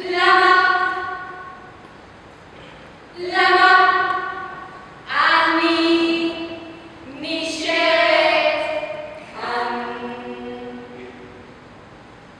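A small group of women singing unaccompanied in long held notes, about five phrases one after another with short pauses between. In the middle and later phrases several voices sound together in harmony.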